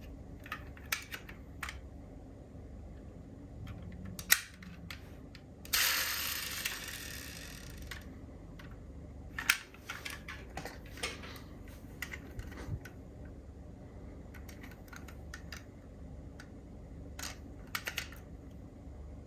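Small sharp clicks and taps of diecast model cars being handled, with parts snapping open and shut. About six seconds in, a rasping noise lasts about two seconds.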